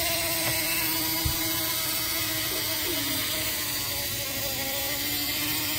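Small battery-powered electric motor of a toy car wash running, a steady whir with a hiss over it.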